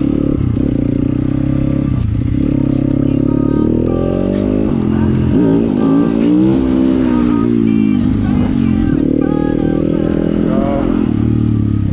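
Motorcycle engine running under way, its revs climbing and falling as the rider accelerates and eases off, twice.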